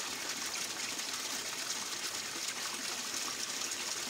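Pump-fed water running steadily down a gold sluice box and gushing off its end into a bucket.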